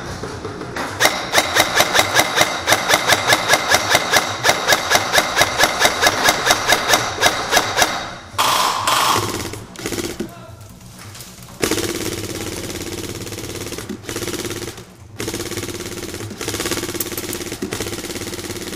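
Airsoft gun firing a fast, steady string of single shots, about four a second, for roughly seven seconds. After a lull, a steadier noise follows.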